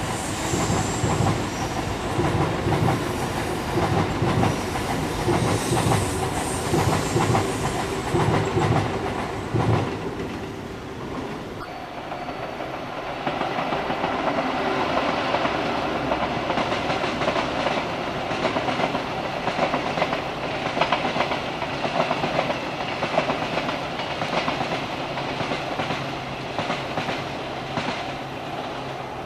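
Electric train passing, its wheels beating a clickety-clack over the rail joints for about ten seconds. The rhythm then gives way to a steadier rail rumble with a steady hum.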